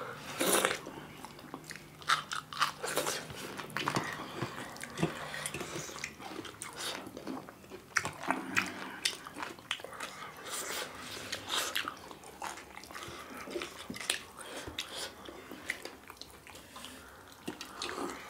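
Close-miked chewing and biting as two people eat finger-millet dhido and chicken curry by hand: wet mouth sounds with many irregular sharp clicks.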